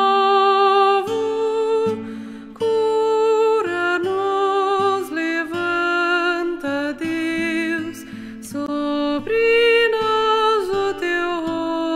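A slow hymn sung with accompaniment, its held notes wavering with vibrato and changing about once a second, with short breaks between phrases.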